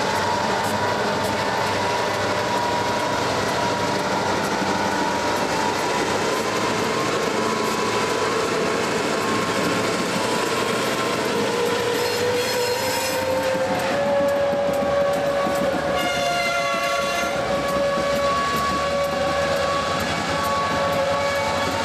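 Diesel locomotives moving slowly past at close range: engine and rail noise with steady, slowly wavering high tones throughout. Brief extra tones come in about twelve seconds in and again about sixteen seconds in.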